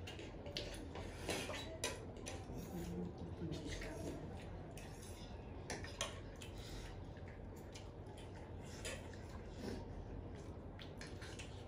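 Light, scattered clinks and taps of cutlery against plates and dishes while eating.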